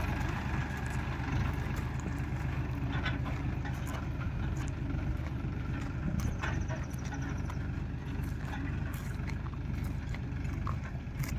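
Heavy diesel farm machine engine running steadily at a low, even pitch.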